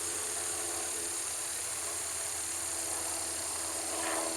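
Steady outdoor background noise: an even hiss with a faint steady hum. A short faint call or distant voice comes about four seconds in.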